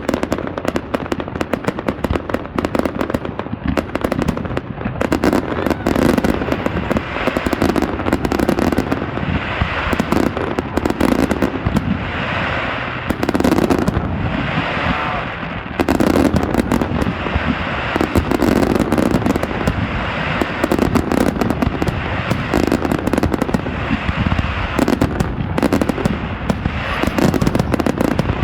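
Fireworks going off in a dense, unbroken barrage: rapid bangs and crackling with no let-up.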